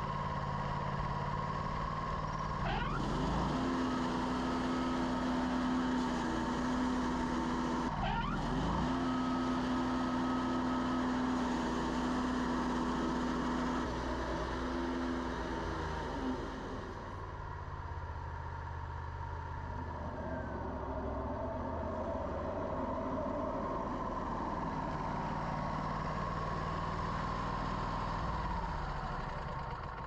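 Wood-Mizer LT40 portable bandsaw mill running under load, its band blade cutting through a log as the saw head travels along it. The machine's note is steady, changing in tone a few times.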